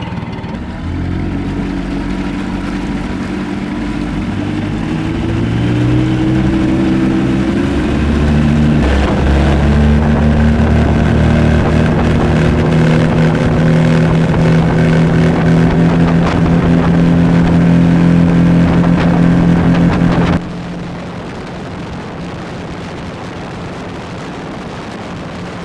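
50 hp four-stroke outboard motor pushing the boat along, its pitch climbing over the first ten seconds or so as it speeds up, then holding steady at high revs. About twenty seconds in the sound drops abruptly to a quieter, steady rumble.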